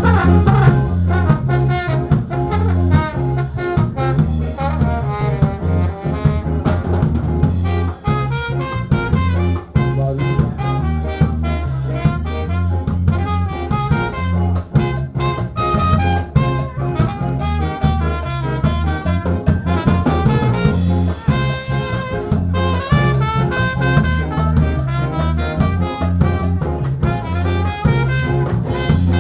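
Ska horn section of trombone, trumpets and saxophones playing live together over a bass line and drums.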